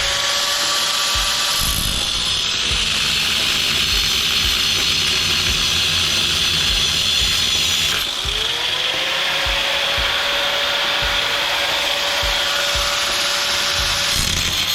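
Hand-held abrasive cut-off wheel grinding through the thick steel housing of an electric motor, a steady harsh grinding hiss over the tool's motor whine. About eight seconds in the whine dips and climbs back up as the wheel eases off and speeds up again.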